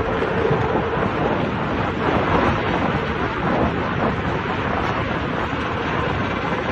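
Many motorcycle and dirt-bike engines running together in a mass ride, blending into one steady, dense noise with no single engine standing out.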